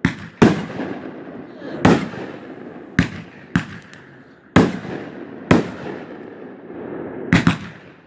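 Fireworks bursting overhead: about nine sharp bangs at uneven intervals, two of them in quick succession near the end, each followed by a fading rumble.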